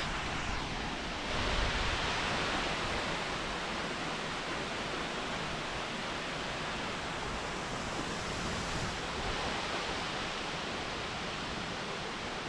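Waterfall: a steady rush of falling water, slightly louder for a couple of seconds from about a second in.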